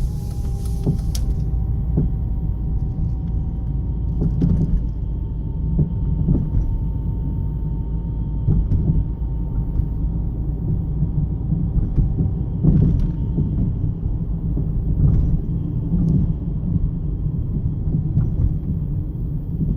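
In-cabin road rumble of a 2009 Jeep Compass 4x4 driving over bumps, with irregular thumps and knocks every few seconds coming up through the floor: the sign of worn front sway bar links.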